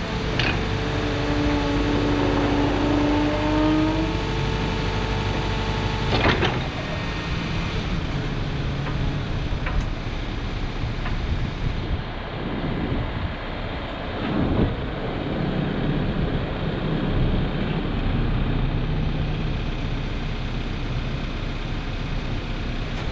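Case 590 Super N backhoe loader's diesel engine running while its hydraulics are worked. A whining hydraulic tone bends in pitch for the first few seconds. Metal clunks come at the start and about six seconds in.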